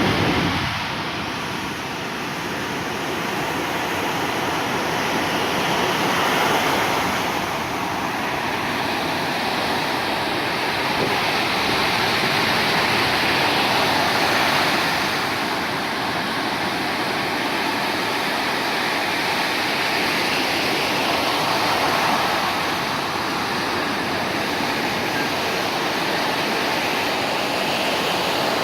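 Storm-driven surf breaking on a sandy beach: a continuous wash of waves that swells and eases every several seconds.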